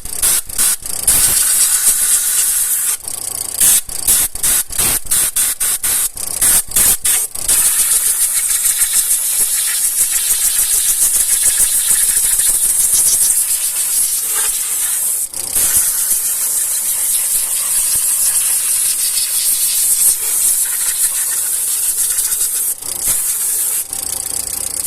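Compressed-air blow gun hissing as it blows water out of the spark plug wells of a car engine. It comes in a quick series of short bursts for the first seven seconds or so, then as a long steady blast.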